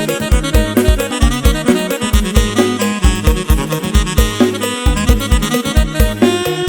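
Electronic organ (Electone) playing fast dance music live: a heavy bass line and a steady kick-drum beat of about three strikes a second, under a reedy lead melody.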